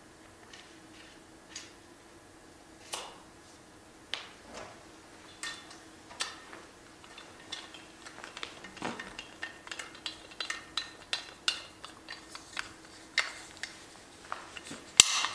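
Ping adjustment wrench working the adjustable hosel of a G425 SFT driver head to change the loft setting: a string of small, sharp metallic clicks and clinks, sparse at first and busier from about halfway, with a louder clatter near the end.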